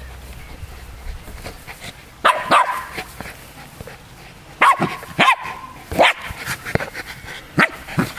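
West Highland White Terriers giving short, sharp play barks in clusters: a few about two seconds in, another burst around five seconds and one more at six.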